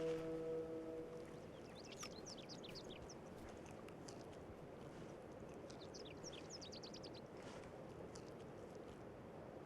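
Faint outdoor ambience with a small songbird twittering in two quick runs of high chirps, after a held musical chord fades out just at the start.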